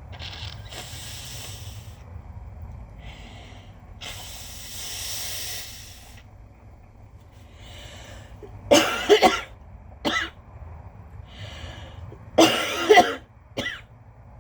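A woman coughing from allergies in two fits, each of two or three coughs, about nine and about twelve and a half seconds in. Before the coughs she breathes noisily for several seconds, with one longer breath about four seconds in.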